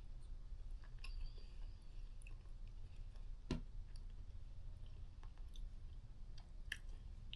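A person chewing a cookie, with faint scattered mouth clicks and smacks; the sharpest click comes about three and a half seconds in.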